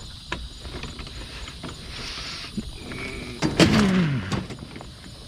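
Knocks and handling noise as a heavy item is team-lifted onto a trailer. About three and a half seconds in comes a loud sound, about half a second long, that drops in pitch.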